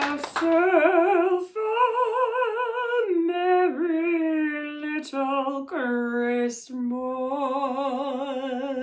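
A woman singing solo and unaccompanied: a string of long held notes with heavy, wavering vibrato, broken by short breaths between phrases.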